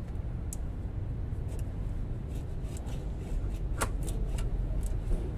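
Short metallic clicks and light rattles of a clutch release bearing being handled and fitted on a truck transmission's input shaft, the sharpest click a little under four seconds in, over a steady low rumble.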